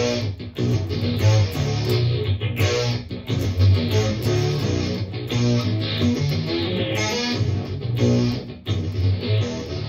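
Electric guitar music with a bass line, chords struck again and again in a steady rhythm.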